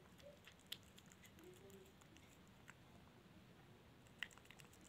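A cat eating from a plate: faint, soft chewing with scattered small clicks, and two sharper clicks, one about a second in and one near the end.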